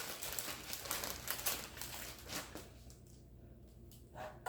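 Crinkling rustle and dense light clicking of a flour bag being handled and poured out for breading, for about two and a half seconds, then a few scattered soft clicks.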